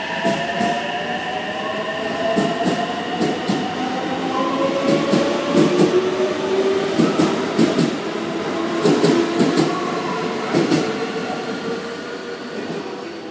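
Electric multiple-unit commuter train pulling out of the station and gathering speed. Its traction motors give a whine that rises in pitch, and its wheels clack over the rail joints in quick groups that thin out near the end as the train leaves.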